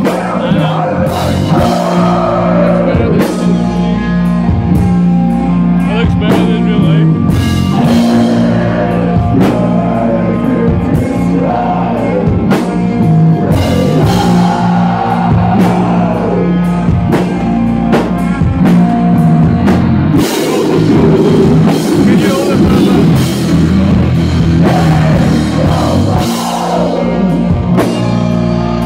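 Live rock band playing loudly: electric guitars and a drum kit, with a vocalist singing into the microphone.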